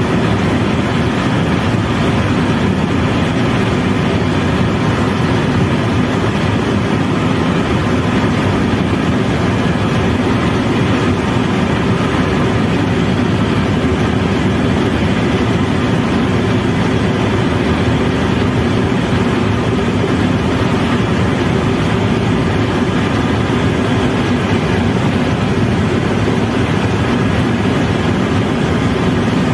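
Steady, loud cabin noise inside an Airbus H130 helicopter in flight on landing approach: its turbine engine and rotor run as one even din that does not change.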